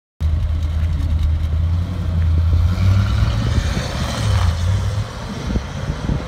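1976 Corvette's 350 small-block V8 exhaust as the car drives away, a low steady note with a slight rise in engine speed partway through. It cuts in suddenly just after the start and gets quieter near the end as the car pulls off into the distance.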